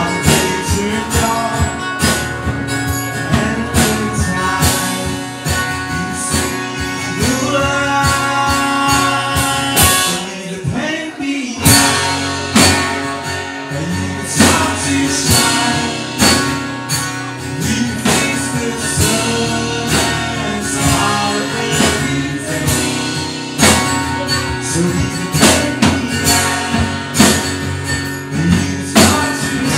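Live acoustic band playing: two acoustic guitars strummed over a drum kit with cymbals, and a man singing. The low end drops out briefly about ten seconds in before the band comes back in.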